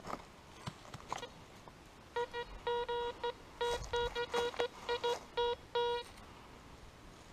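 Metal detector beeping over a buried metal target: a run of about a dozen short, same-pitched beeps starting about two seconds in, some close together, as the coil is swept over the hole being dug. Faint scratching of hands in dry leaves and soil before the beeps.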